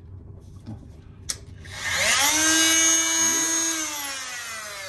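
Handheld power tool switched on briefly, with a click just before the motor comes on. The motor whines up to speed, runs steady for about two seconds, then winds down slowly, falling in pitch. Its owner says it makes a lot of noise.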